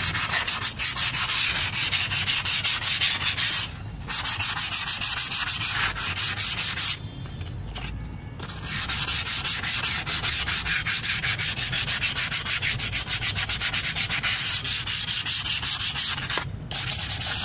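Sandpaper rubbed by hand in quick back-and-forth strokes over the braking face of a freshly refaced cast-iron brake rotor, scuffing its smooth machined finish so the brake pads grip better. The strokes stop briefly a few times.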